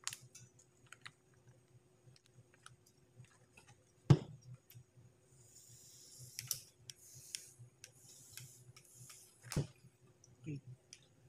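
Small clicks and taps of a rebuildable vape being handled and dripped with e-juice, with a sharp knock about four seconds in. Then a few seconds of hissing in pulses as the vape is fired and its vapor blown out, and another knock near the end.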